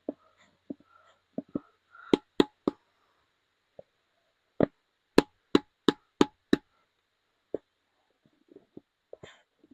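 Bottle of polishing compound knocked and tapped repeatedly to bring the thick compound down to the cap. There are three sharp knocks about two seconds in, then a run of six more from about four and a half seconds, with lighter taps between.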